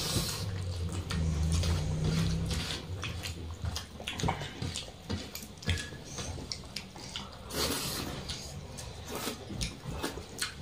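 Eating by hand from steel plates: fingers squishing and mixing rice with egg curry, scraping and tapping the metal plates, and wet chewing sounds, in irregular short clicks. Low background music fades out in the first couple of seconds.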